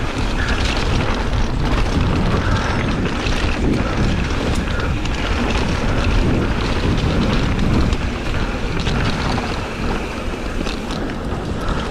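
Wind rushing over an action camera's microphone on a mountain bike riding downhill, with the knobby tyres rolling on a dirt trail and scattered rattles and clicks from the bike over bumps.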